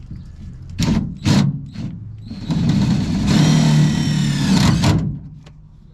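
A few sharp knocks, then a power tool's motor running for about two and a half seconds and cutting off suddenly.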